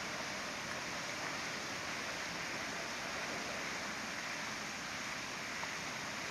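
Steady rushing background noise, even and unbroken, with no distinct calls or knocks.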